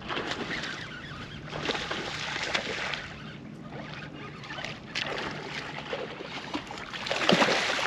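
Water splashing and sloshing as a hooked largemouth bass is fought up to a bass boat, in several surges with the loudest splashing near the end, over a faint steady low hum.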